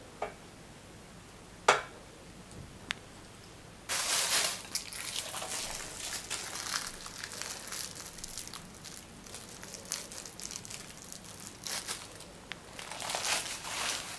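A few sharp clicks, then, from about four seconds in, a plastic bag crinkling and crackling as it is squeezed to pipe a sour cream and mayonnaise mix in a mesh over the salad. The crinkling goes on until near the end.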